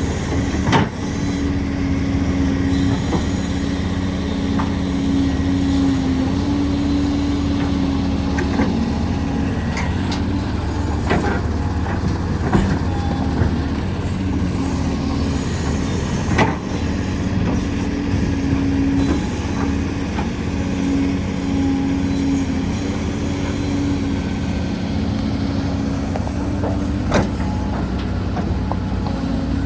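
Heavy diesel excavator running steadily at work, with a pitched engine drone that swells and fades and scattered metallic clanks and knocks.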